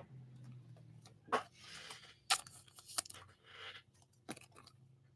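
Trading cards and their foil pack wrapper being handled: four faint, sharp crackles with soft rustling between them.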